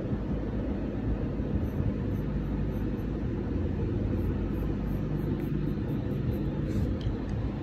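A steady low rumble with a few faint ticks near the end.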